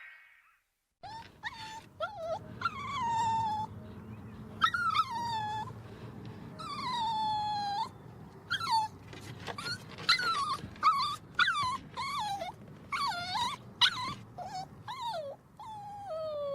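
Dog whining and whimpering: a long series of high whines, mostly falling in pitch, some drawn out and some short, starting about a second in.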